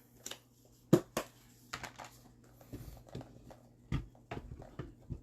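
Scattered light clicks and taps as marshmallows are handled and placed by hand into a plastic Tupperware cooking dish. The sharpest tap comes about a second in.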